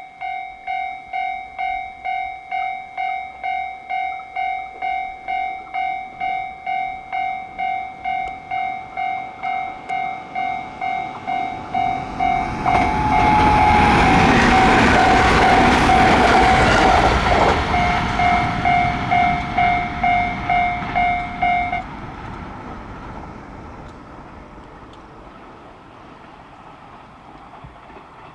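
Japanese railway level-crossing warning bell ringing in steady repeated strokes, about one and a half a second, while a train passes. The train gets loud about twelve seconds in and is loudest for about six seconds. The bell stops about twenty-two seconds in, and the train noise then fades away.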